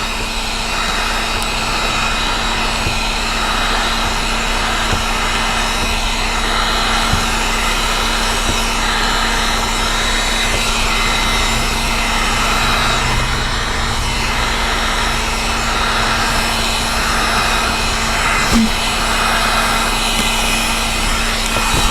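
Heat gun running steadily, its fan blowing with a constant hum, while heat-shrinking automotive window film.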